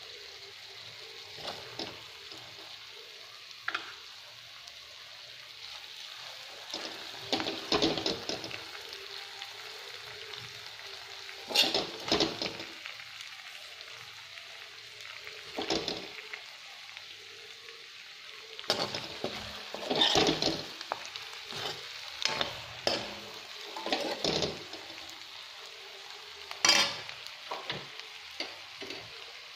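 Masala-coated whole brinjals frying in a little oil in a kadai with a steady gentle sizzle. A steel spoon scrapes and clinks against the pan every few seconds as pieces are lifted out.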